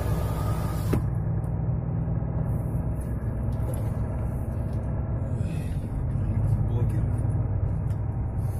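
Truck engine running, a steady low drone heard from inside the cab, with a single click about a second in.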